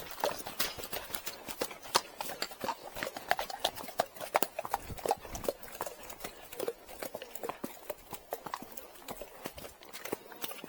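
Friesian horse's hooves clip-clopping on a hard track, a quick, irregular run of sharp hoof strikes.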